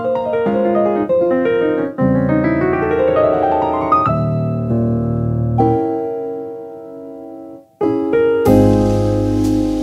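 Background piano music: single notes, then a rising run into a held chord that slowly fades. Near the end, after a brief gap, a fuller passage starts with percussion under the piano.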